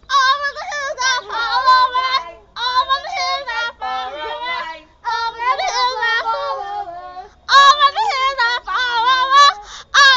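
A girl singing solo without accompaniment, in four phrases with short breaks between them, her pitch wavering on the held notes.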